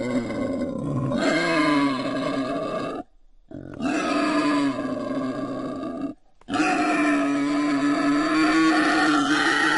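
Wild boar calls: long, drawn-out pitched calls in three stretches of about three seconds each, every one broken off suddenly by a brief silence.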